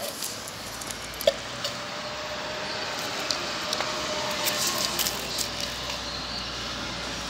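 Wet canned cat food being scooped out of a tin onto plastic trays, soft squishing with scattered small clicks, over steady street noise.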